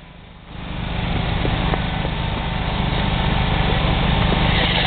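Small engine of a motorized concrete buggy running at a steady speed with an even low pulse. The sound drops out briefly at the start and comes back about half a second in.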